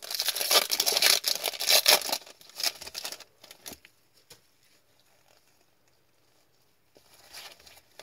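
Foil wrapper of an Upper Deck hockey card pack crinkling and tearing open, a dense crackle for about three seconds. After that it falls nearly quiet except for a few soft clicks and faint rustling near the end.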